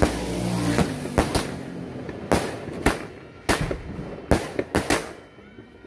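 Fireworks going off: a rapid, irregular series of sharp bangs, about ten in six seconds.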